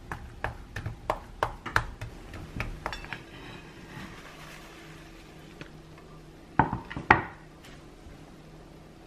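Kitchen utensils clinking against dishes and a pan: a run of light taps in the first three seconds, then two loud clanks about half a second apart past the middle.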